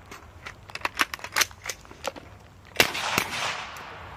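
Rifle fire from a line of shooters: about a dozen single shots at uneven spacing, some loud and some fainter. The loudest crack comes near three seconds in and rings out briefly after.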